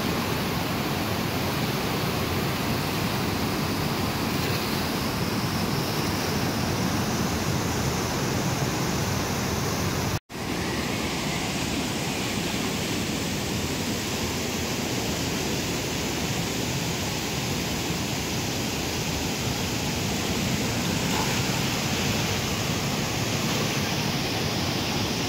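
Flash-flood water rushing and churning in a steady torrent, broken by a momentary gap about ten seconds in.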